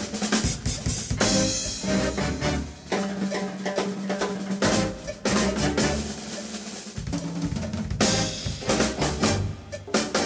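Live big band jazz, with the drum kit to the fore: a busy run of snare, bass drum and cymbal hits and rolls under held brass and saxophone chords.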